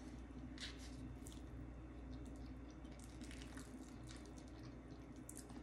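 Faint eating sounds: a metal fork stirring and twirling pasta in a bowl, with soft scattered clicks, over a low steady room hum.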